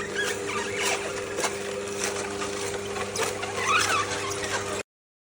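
Cold-press slow juicer running with a steady motor hum, over irregular squeaks and crackles as its auger presses the produce. The sound cuts off suddenly near the end.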